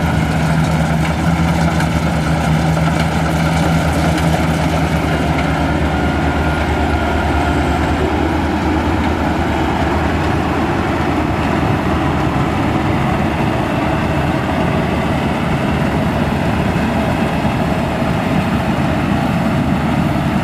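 Maxxi Bimo Xtreme combine harvester running steadily while harvesting rice: a continuous engine and machinery hum. A low steady engine tone is clearest for the first few seconds, then blends into a more even rumble.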